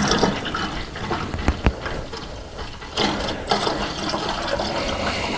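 Antifreeze concentrate pouring from a plastic jug into a car radiator, a steady splashing pour that grows louder about three seconds in.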